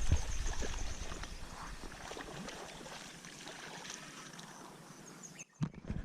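Outdoor pond-side ambience with a repeated high insect chirp; a couple of low thumps in the first half-second, then the sound drops out abruptly about five and a half seconds in and is followed by a few sharp clicks.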